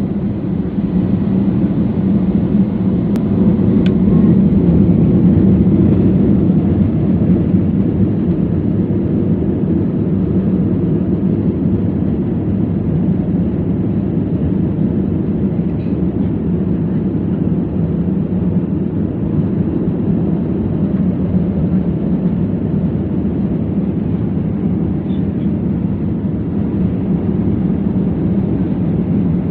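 Jet engines of an Airbus A320-family airliner at takeoff power during the takeoff roll, heard from inside the cabin as a loud, steady low rumble.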